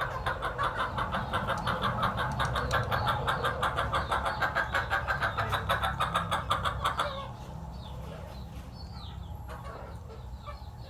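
A chicken giving a fast, even run of clucks while it is held to have mucus scraped from its throat. The clucking stops abruptly about seven seconds in.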